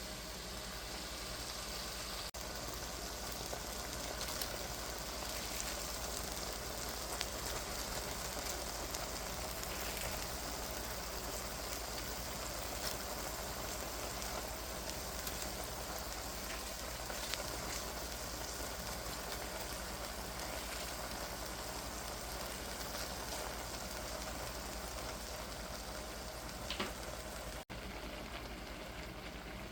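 Food sizzling steadily in a hot pan, with small scattered crackles and pops.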